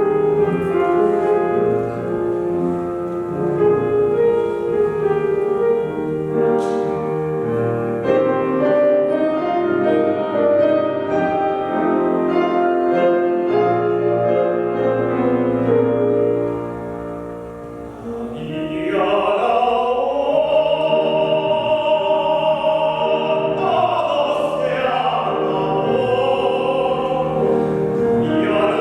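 Piano playing on its own, then about eighteen seconds in a trained solo voice comes in over the piano, singing long notes with a wide vibrato in classical style.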